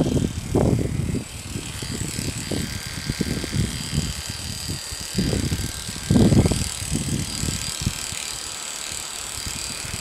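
Electric dog grooming clippers running steadily with a thin high whine as they shave the short hair on a Scottish terrier's head, with irregular low rumbles underneath, loudest about six seconds in.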